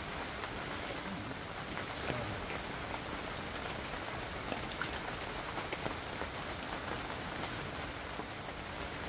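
Steady rain pattering on a tent awning, an even hiss with light scattered clicks from spoons and plates.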